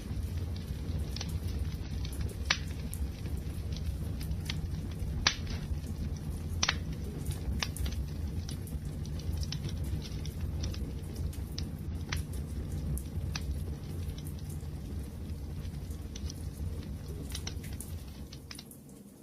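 Wood fire crackling in a fireplace: a steady low rumble of burning with frequent small snaps and a few louder pops, the loudest about five seconds in. It eases slightly toward the end.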